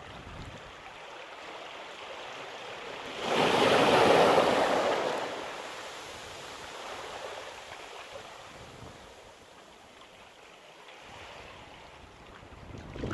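Sea waves at high tide breaking on the shore: one wave crashes about three seconds in, loudest around four seconds, and its wash fades over the next couple of seconds. The next wave starts to break near the end.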